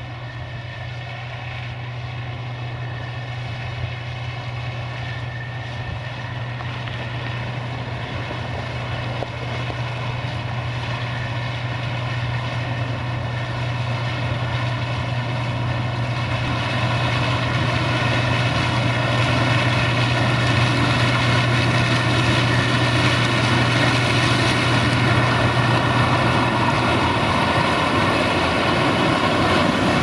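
Case IH 2166 Axial-Flow combine running while harvesting corn: a steady engine and threshing hum that grows steadily louder.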